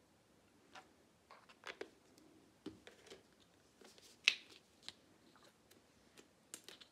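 Scattered light clicks and taps from a plastic acrylic paint squeeze bottle being handled, capped and moved about on a wooden tabletop, the sharpest click about four seconds in.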